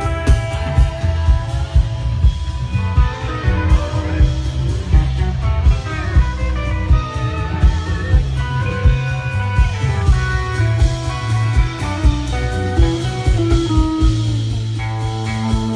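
Live band playing instrumental rock over an outdoor PA, with electric guitar lines over bass and a drum kit keeping a steady beat.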